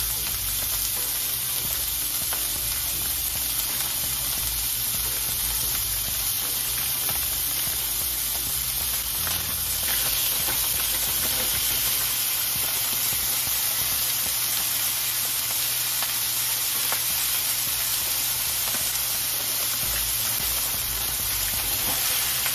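Pork and onions sizzling steadily in hot oil in a stainless steel frying pan as frozen bilimbi (kamias) slices are tipped in. The sizzle gets slightly louder about halfway through.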